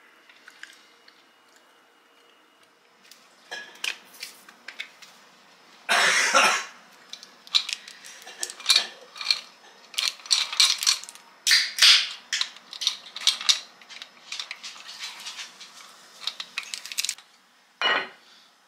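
Glassware, a plastic bottle and other kitchen items being handled on a countertop: a quick run of clinks, knocks and clatters, with a louder rattling burst about six seconds in and another sharp knock near the end.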